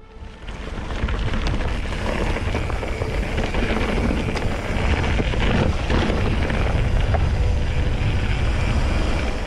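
Steady wind rumble and rushing noise on a moving camera's microphone during a mountain-bike ride, heaviest in the low rumble, with a few light clicks.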